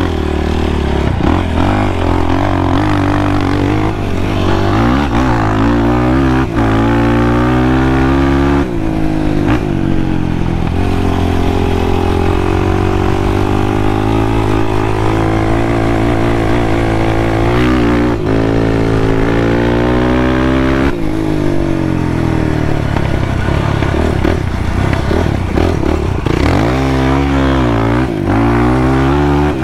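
Sport ATV engine running under throttle, its pitch rising and falling repeatedly as it is revved and let off, with several quick rev-ups near the end.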